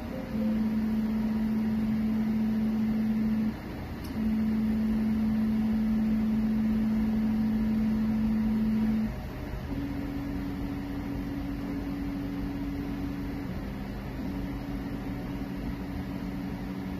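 CreatBot PEEK 300 3D printer running a print: its stepper motors hum in steady tones that jump to a new pitch every few seconds as the moves change, over a constant fan hiss. The hum is loudest in the first half, with a short dip about three and a half seconds in, and is quieter and a little higher from about nine seconds on.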